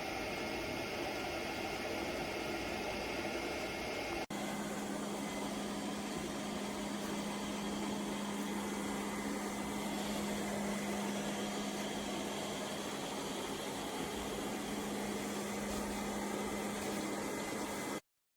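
LEFANT M310 Ultra robot vacuum running, a steady whirring motor-and-suction noise. About four seconds in there is an abrupt change, after which a steady low hum joins it, and the sound cuts off suddenly near the end.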